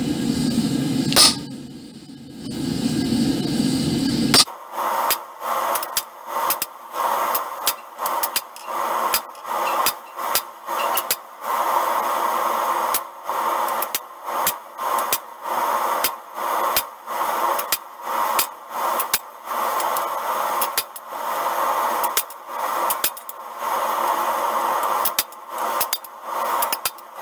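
Hammer blows on a hand-held chisel notching a red-hot iron bar on an anvil. The blows come at a steady pace of about one to two a second, with metallic ringing between them. For the first four seconds or so there is only a steady low rumble before the striking begins.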